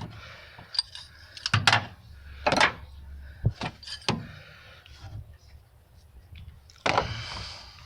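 Irregular clinks, knocks and rustles from hand tools (ratchet, sockets, extension) being handled under the hood during a spark plug change.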